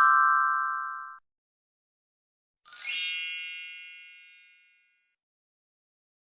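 Two separate bell-like ding sound effects of the notification-tone kind: the first rings at the start and fades out within about a second, the second, brighter and higher, starts about two and a half seconds later and fades over a second and a half.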